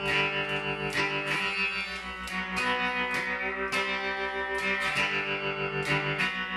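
Homemade electric guitar played through a homebuilt vacuum-tube amplifier, a clone of an old Fender guitar amp with a single 6V6 output tube: plucked notes ringing and changing about once a second, pulsing with the amp's tremolo. A steady low hum runs underneath, from the amp and variac not being grounded.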